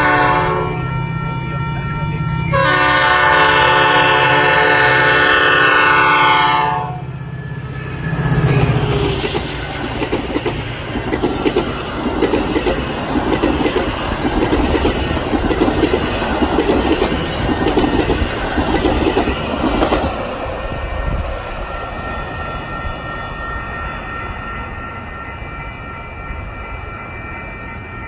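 Metra commuter train horn sounding a brief blast, then a long blast of about four seconds as the express nears the crossing. Then the train of stainless bilevel cars passes at speed, its wheels clattering over the rail joints about once a second, and the sound fades as it moves away.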